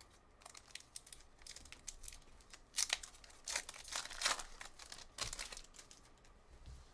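Crinkling and tearing of a trading card pack's wrapper as a hockey card pack is ripped open by hand: a run of short, sharp crackles, busiest in the middle.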